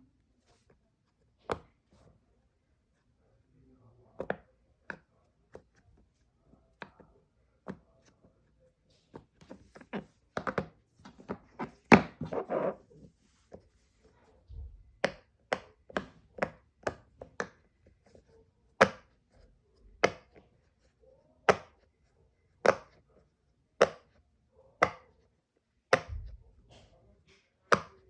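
Silicone pop-it fidget toy bubbles being pressed, each giving a sharp pop: scattered pops at first, a quick flurry in the middle, then a steady pop about once a second.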